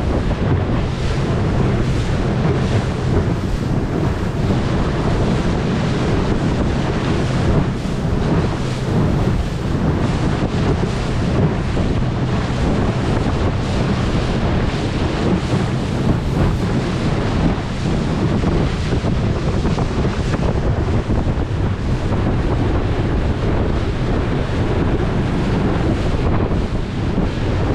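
Wind buffeting the camera microphone on a moving boat, over the boat's steady low running noise and rushing water.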